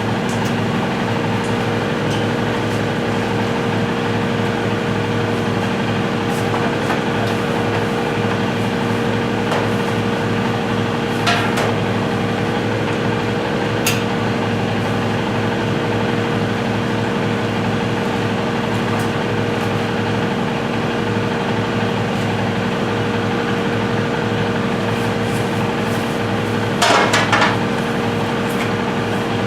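A steady electrical hum from a running appliance or motor. A few knocks and clatters come about 11 and 14 seconds in and near the end, as the air compressor is handled and set into position.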